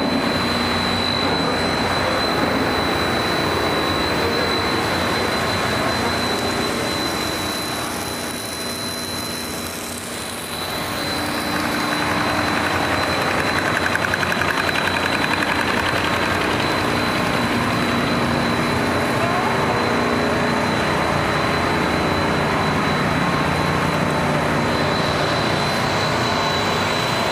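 Machinery of a core-filling snack production line running: a steady, loud mechanical din with a constant high whine. It dips briefly about eight seconds in and comes back up about three seconds later.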